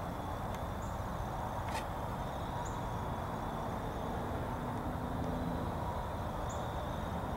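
Outdoor woodland background: a steady low rumble with a thin, steady high drone above it, three faint short high chirps and one sharp click a little under two seconds in.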